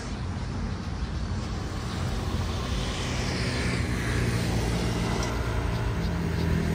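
Street traffic: passing vehicles' engines and tyre noise, growing slowly louder, with a vehicle's engine hum coming up strongly near the end.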